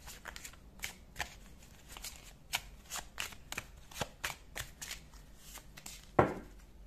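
A deck of fortune-telling cards being shuffled by hand: a string of quick, irregular card snaps, with a louder thump about six seconds in.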